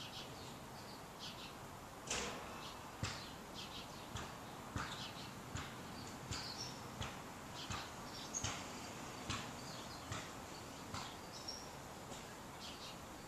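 Small birds chirping: a scattered run of short, sharp chirps with a few higher whistled notes, over a faint steady background noise.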